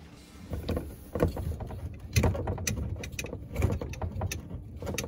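Irregular knocks, clunks and rattles of things being handled and bumped inside a kitchen sink cabinet, starting about half a second in.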